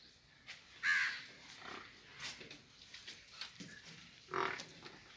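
Two short, harsh animal calls, one about a second in and one near the end, over faint scattered clicks and rustling.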